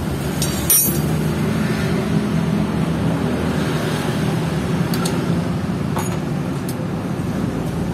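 Metal clinks from a T-handle wrench and loose parts as the aluminium cylinder head of a Suzuki GSX 150 engine is unbolted and lifted off the block. There is one sharp clank about a second in and a few lighter clicks later, all over a steady low mechanical hum.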